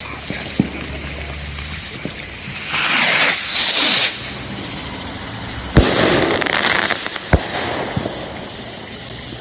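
A Nuclear Power brand firework rocket launching with a hiss lasting about a second and a half. Two seconds later it bursts with a sharp bang, followed by crackling and a second sharp bang.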